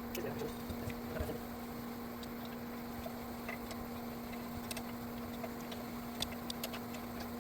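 A steady low hum, with scattered light clicks and ticks over it.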